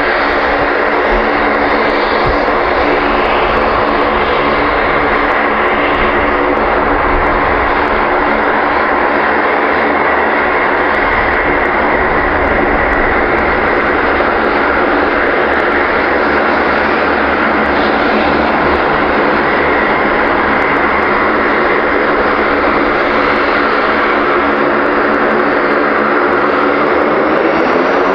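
Lockheed C-130 Hercules's four turboprop engines running as it taxis: a loud, steady propeller drone with a hum of layered tones, rising slightly in pitch near the end.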